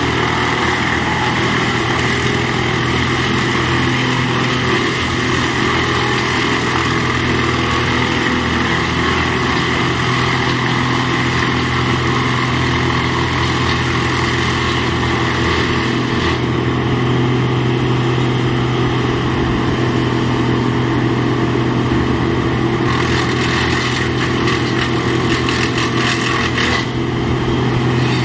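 Large engine running steadily at an even speed, with a faint high whine in the middle stretch.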